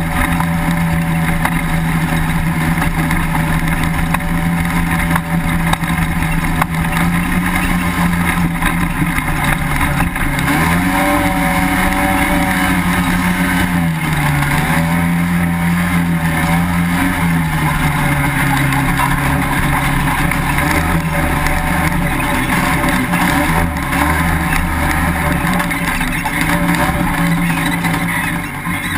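Honda FL400R Pilot's single-cylinder engine running hard while driving on sand, its pitch rising and falling a few times midway as the throttle opens and eases, then dropping lower for a few seconds before settling back to a steady drone.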